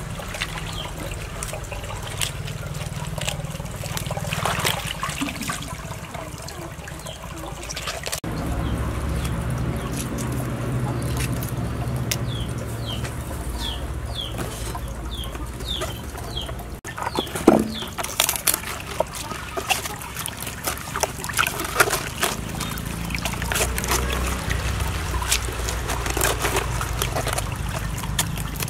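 Water splashing and trickling in a plastic basin as vegetables are washed and Chinese cabbage leaves are peeled off, with scattered clicks and knocks. In the middle a bird gives a string of about eight short chirps, each falling in pitch.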